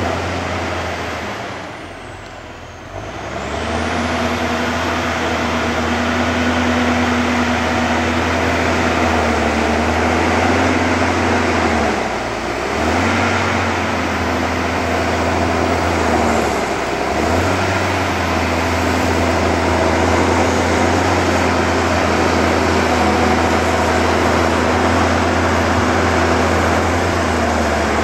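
Diesel engine of a loaded forestry forwarder running steadily as the machine drives through the forest on its tracked bogies, the engine note dropping away briefly about two seconds in and again around twelve and seventeen seconds.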